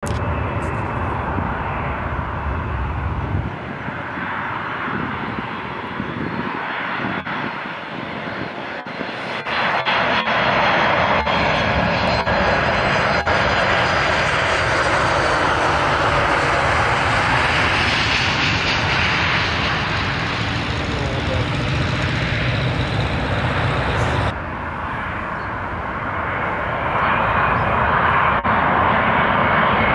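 Jet engines of airliners landing, a steady rumble and hiss in several clips joined by abrupt cuts. The loudest stretch is a Boeing 737 touching down, and a Boeing 787 on final approach comes in near the end.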